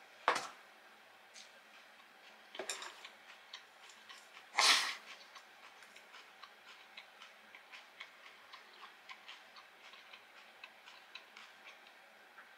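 Close-up crunching of crispy breaded fried food being chewed: a few louder crunches in the first five seconds, the loudest about five seconds in, then quieter crisp clicks about three a second.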